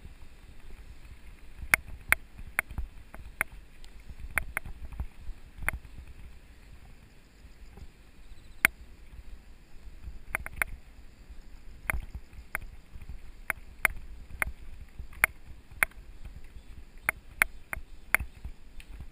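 Mountain bike riding over a rough gravel forest road: a steady low rumble with sharp, irregular clicks and rattles as the bike jolts over the stones.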